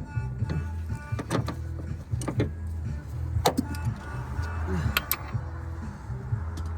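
Background music with a steady bass beat, with several sharp clicks and knocks over it.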